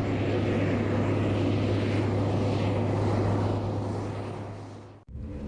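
Steady drone of an aircraft engine, a deep hum under a rushing hiss, fading out over the last second and cutting off abruptly. A different engine hum starts just after the cut.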